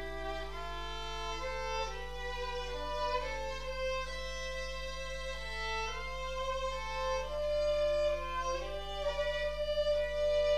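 Two violins playing a slow duet, with long held notes and the two parts moving against each other.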